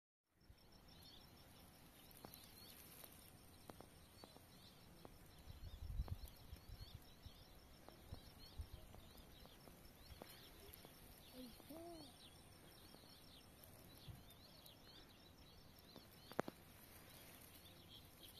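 Faint outdoor ambience with small birds chirping on and off, short high chirps scattered throughout. A brief low rumble, like wind on the microphone, comes about six seconds in.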